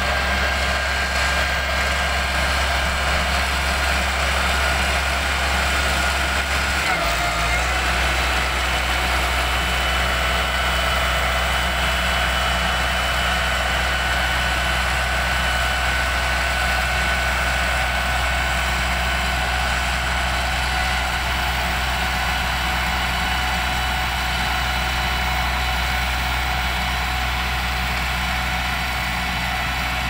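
Mitsubishi motor grader's diesel engine running steadily as it grades gravel, its note shifting slightly about seven seconds in.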